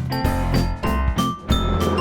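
Background music with bright, chiming notes in a quick rhythm; about one and a half seconds in, a steady noise comes in under it.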